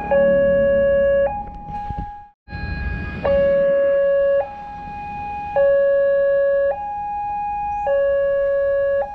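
Railroad crossing warning alarm of a Wantech-model level crossing sounding while the crossing is closed: an electronic two-tone signal alternating between a lower and a higher note, each held about a second. It cuts out briefly about two and a half seconds in.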